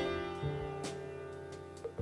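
Instrumental jazz from a 1976 quartet recording: a chord rings and slowly fades, a low bass note comes in about half a second in, and a few light percussion strokes sound over it.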